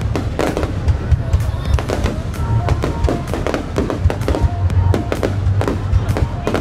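Fireworks display: a rapid, irregular string of aerial shell bangs and crackles over a continuous low rumble.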